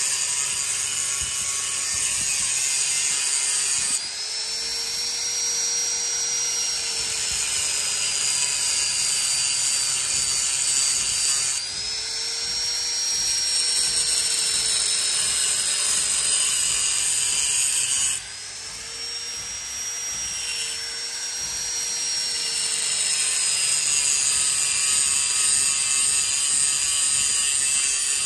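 An electric power tool running steadily, a motor whine over a hiss. Three times the whine jumps up in pitch and then slowly sags back down.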